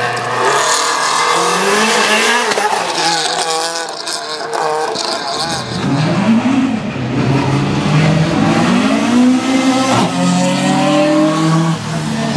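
Rally car engine revving hard, its pitch climbing and dropping again and again as it changes gear. The engine note grows louder about halfway through.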